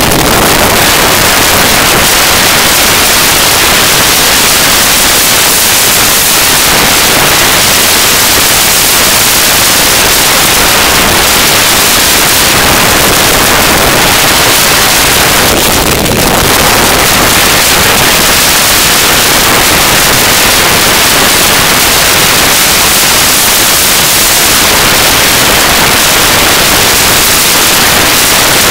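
Loud, steady wind noise rushing over a moving camera's microphone, a harsh even hiss with no distinct tones.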